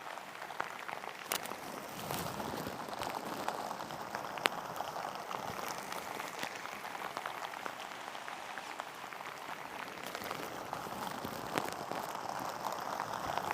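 Steady light rain falling, with many small scattered drop ticks.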